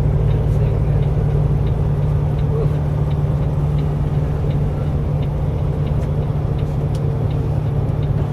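Steady low drone of a Peterbilt truck's diesel engine and road noise heard from inside the cab while driving, with faint ticks about twice a second.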